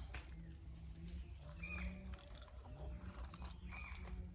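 Faint rustling and handling noise among leaves and rock, with a short high chirp repeating about every two seconds from a calling animal.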